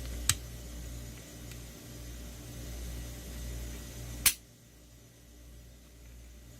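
Two sharp clicks from Glock 19 pistol parts being handled, about four seconds apart, the second louder, over a steady low hum that drops away right after the second click.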